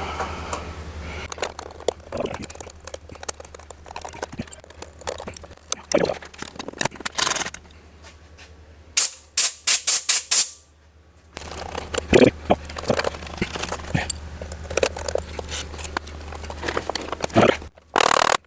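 About halfway through, several quick hisses from an aerosol can of penetrating oil sprayed onto rusted screws. Around them are clicks and scrapes of hand tools on metal.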